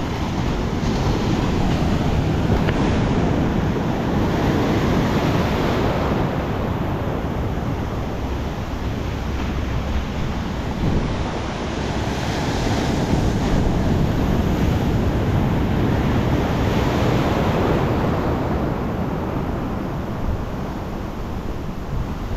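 Ocean surf breaking and washing up the beach in long surges that swell and ease every several seconds, with wind buffeting the microphone.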